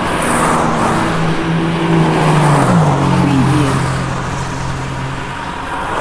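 Road traffic: cars driving past one after another, their tyre noise swelling and fading. One vehicle's engine hum drops in pitch as it goes by, about halfway through.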